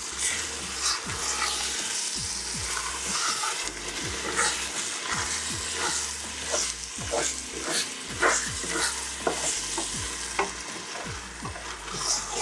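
Fried egusi (ground melon seed) paste sizzling in a pot while a spoon stirs it, scraping and knocking against the pot again and again.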